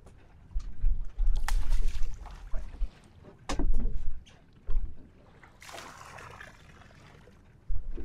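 Wind gusting against the microphone on a small boat at sea, with a few sharp knocks in the first half and a short rush of splashing water about six seconds in.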